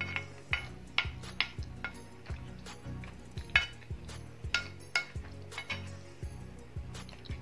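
Wooden spoon tapping and scraping against a china plate while scooping rice: an irregular string of short clinks, several a second, the loudest about three and a half seconds in. Quiet background music runs underneath.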